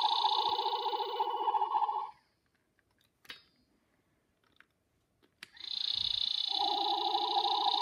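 Battery-powered light-up toy gun with a spinning ball head running with a steady electronic whir, which stops about two seconds in. After a click and a few seconds of near silence, the whir starts again.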